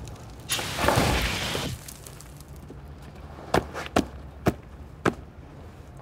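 A fire extinguisher sprays in one burst lasting just over a second, then a shoe stamps four times on a charred, burning cardboard box.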